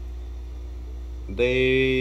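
A steady low electrical hum, with a man's voice starting to speak about a second and a half in.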